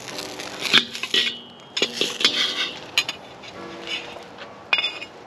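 Metal ladle clanking against a wok and other kitchenware while stir-frying, several sharp clanks spread through a few seconds, some with a short metallic ring.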